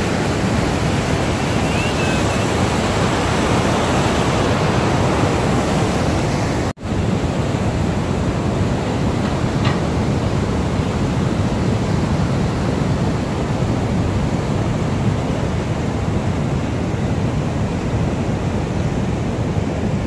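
Steady rush of white water churning below a dam's spillway, breaking off for an instant about a third of the way in.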